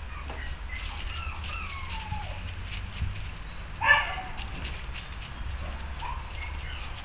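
Puppies playing: a single short, sharp yap just under four seconds in, the loudest sound. Around it come a few faint falling whines and light pattering and rustling in dry leaves.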